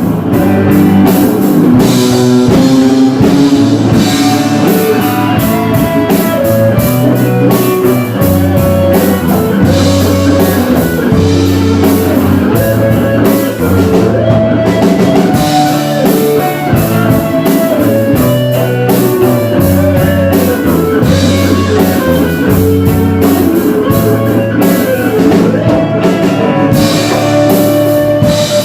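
Loud rock music with electric guitar and a drum kit keeping a steady beat.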